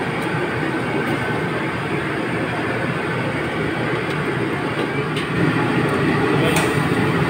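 Steady low roar of commercial kitchen equipment, such as a wok burner or an exhaust hood, with a few light clicks of metal tongs against the wok. The roar gets a little louder about five seconds in.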